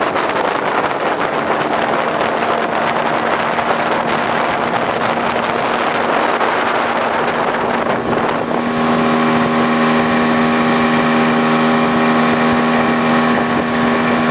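Small outboard motor running steadily at speed, with rushing wind and water. For the first eight seconds the engine is faint under the rush of wind and spray; then it comes in close and loud, a steady, even engine note over the wake.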